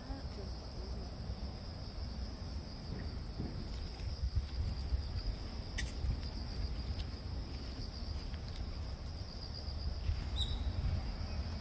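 Steady high-pitched insect chorus, with a continuous low rumble underneath.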